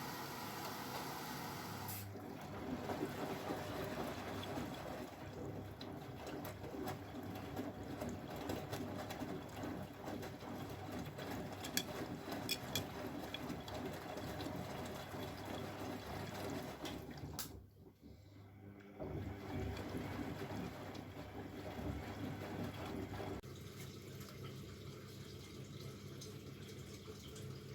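Bosch Maxx WFL 248Y front-loading washing machine mid-cycle, with water running steadily in the machine. The sound shifts about two seconds in, cuts out briefly near the middle, and changes again towards the end.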